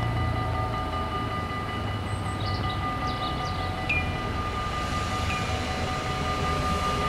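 Level-crossing bells ringing steadily with the barriers down, while an approaching Arriva Spurt GTW diesel railcar grows louder toward the end.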